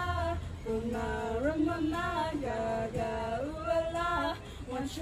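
A young voice singing a melody in long held notes that slide from one pitch to the next, phrase after phrase with short breaths between.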